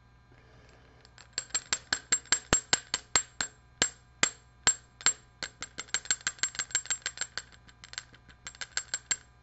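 A metal fly-tying hair stacker tapped down over and over, a quick run of sharp clicks several a second with a short pause near the end. The tapping settles a clump of deer hair so its tips line up evenly for a comparadun wing.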